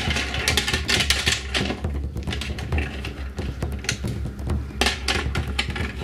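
Small plastic balls clattering and rolling across a plastic toy game board, with the plastic launcher levers clicking: a dense, irregular run of rattles and knocks.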